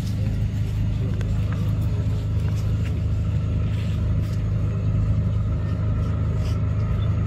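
An engine running steadily, a continuous low drone, with faint scattered clicks over it.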